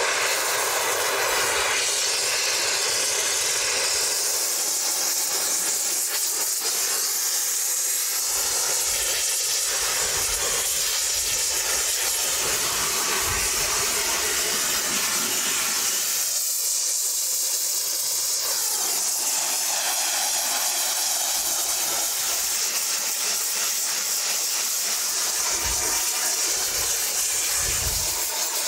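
Two-valve gas welding torch burning with a steady, loud hiss as its flame is played over beef hooves to singe them.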